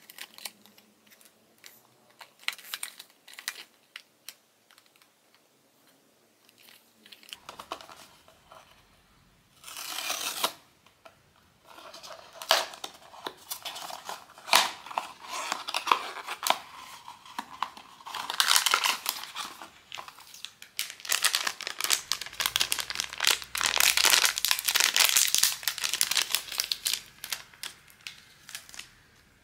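Packaging from a blind box being unwrapped: scattered light clicks and taps at first, a short tearing burst about ten seconds in, then plastic or foil wrapping crinkling and rustling continuously through the second half.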